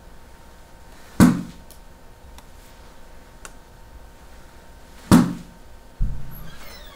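Golf iron striking a ball off a hitting mat twice, about four seconds apart, each a sharp crack. Near the end there is a duller thud that fades out.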